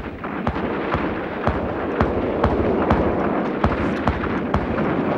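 Anti-aircraft guns firing: a rapid, irregular series of sharp shots, roughly two a second, over a continuous rumble of more distant fire.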